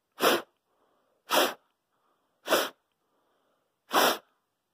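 Four hard puffs of breath blown through a cloth face mask made of two cotton layers with a Swiffer sweeper cloth between, spaced about a second apart.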